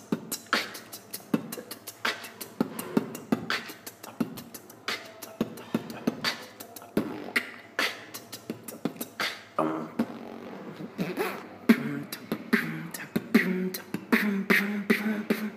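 Solo vocal beatboxing: a fast, steady beat of sharp mouth-made kick, snare and hi-hat sounds. From about ten seconds in, low sung tones join under the beat.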